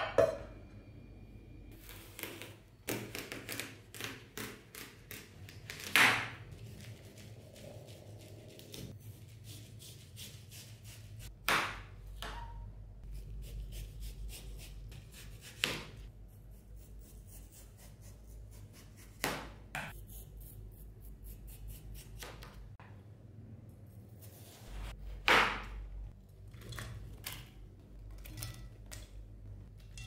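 Kitchen work: a dozen or more sharp knocks and clicks at irregular intervals, over a faint low hum that comes and goes.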